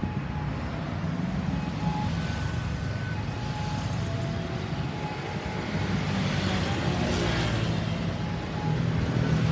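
Road traffic: a vehicle engine running low and steady under the wash of passing traffic, which swells as something passes about seven seconds in. No siren is sounding.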